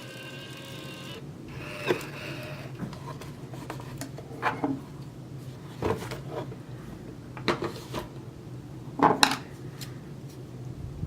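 Small metal lock parts being handled and set down: about five light knocks and clinks, the loudest about nine seconds in. A short pitched tone sounds in the first two seconds, over a steady low hum.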